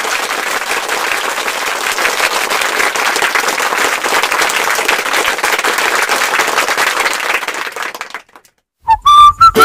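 Crowd applause, a dense steady clapping that fades out about eight seconds in. After a brief silence, background music with a whistled tune starts near the end.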